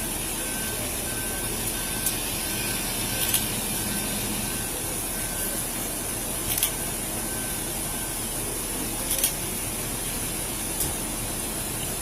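Steady hiss, with a faint electronic beep repeating about every two-thirds of a second that stops about eight seconds in, and a few scattered sharp clicks.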